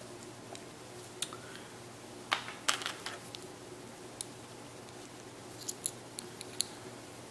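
Small scattered clicks and scrapes of a watch band's metal connector being handled and slid into an Apple Watch's band slot, with a cluster of light ticks near the end.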